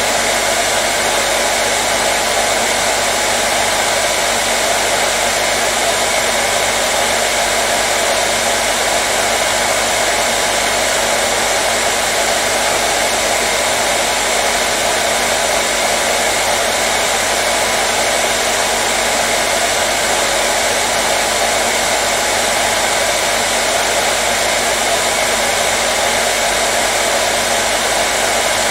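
Hair dryer running steadily: an even, unbroken rush of blowing air with a faint motor hum beneath, never changing in pitch or loudness.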